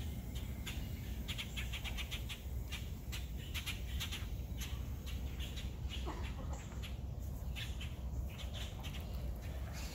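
Birds chirping in quick runs of short calls, over a steady low rumble.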